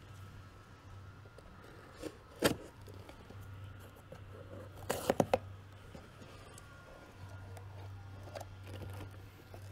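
A few sharp clicks and knocks over a low steady hum, the loudest about two and a half seconds in and a quick cluster of three about five seconds in.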